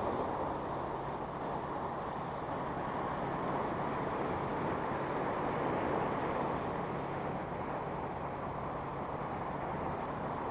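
Sea waves washing and breaking over low coastal rocks, a steady churning wash of surf. A faint, steady low hum runs underneath.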